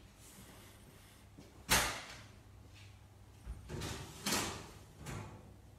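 Door and metal baking tray of a stainless-steel bakery proofing cabinet as the tray is loaded in: one sharp bang about two seconds in, then a few softer knocks and clunks.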